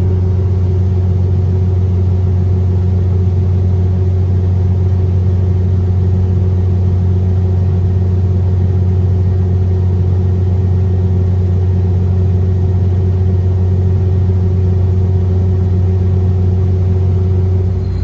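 Combine harvester running at working speed, heard from inside the cab: a steady, loud low drone with a constant hum of engine and threshing machinery while it unloads corn into a grain cart on the go.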